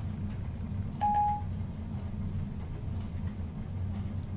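A short single electronic beep about a second in, Siri's tone on the iPhone 4 after the spoken question, over a steady low hum.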